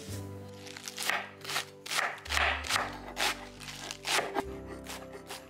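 Chef's knife chopping romaine lettuce on a wooden board: crisp crunching strokes about two a second, each ending in a knock of the blade on the wood.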